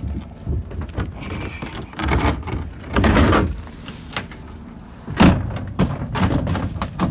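Hollow plastic layout boat being handled: irregular scraping and knocks, with a longer scrape about three seconds in and a sharp knock a little past five seconds.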